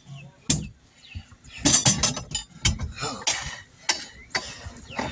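Irregular metallic clinks, knocks and scrapes as a pickup-truck wheel rim is handled and set on a tire-changing machine.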